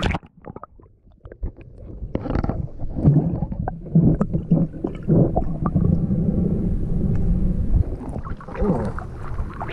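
Muffled underwater sound picked up by a camera held below a river's surface: a splash as it goes under at the start, then a low rumbling full of bubbling clicks and knocks.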